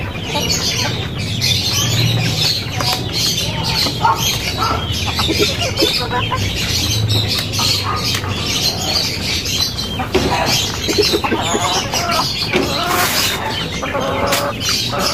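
Chickens clucking and squawking with small birds chirping. A short hiss comes a little after two-thirds of the way through.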